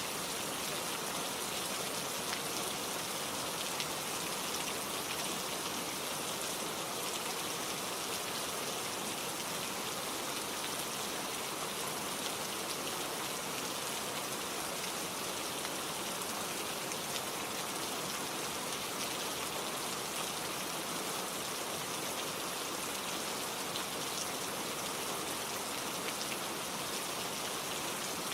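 Steady rain falling, with fine pattering of individual raindrops on a surface.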